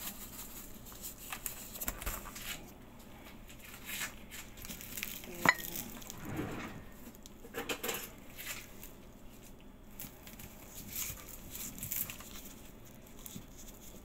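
Food preparation by gloved hands: scattered clinks, taps and rustling of kitchen utensils and containers, with one sharp click about five and a half seconds in.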